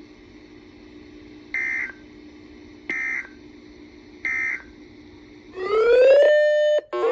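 Three short bursts of Emergency Alert System end-of-message data tones, about a second and a half apart, over a faint steady hum from the weather radio broadcast. Near the end a loud siren-like tone rises in pitch, holds steady and cuts off suddenly.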